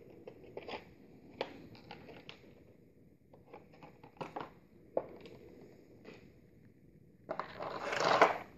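A clear plastic blister tray and small plastic figure parts being handled: scattered light clicks and taps, then a louder crinkling rustle of plastic about seven seconds in.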